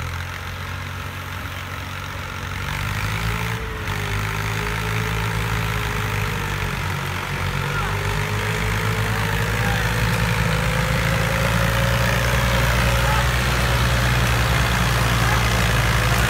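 Massey Ferguson 260 turbo tractor's three-cylinder diesel engine running steadily under load, pulling a trolley heavily loaded with logs, growing louder as the tractor comes closer.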